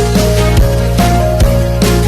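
Upbeat background music with a steady beat and plucked melody notes.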